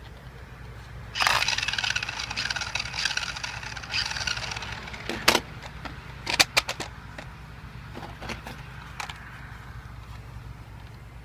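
Toy remote-control car's electric motor whirring with a whine as it is run from the controller, starting suddenly about a second in and dying away over a few seconds, followed by several sharp clicks and knocks.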